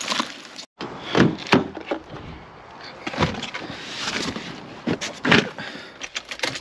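Irregular scraping and knocking strokes with a few sharp knocks among them; the sound cuts out for a moment about a second in.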